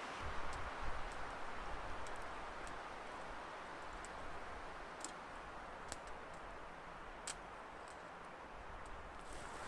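Small campfire crackling, with a few sharp pops scattered through it over a steady hiss, and some low knocks about a second in.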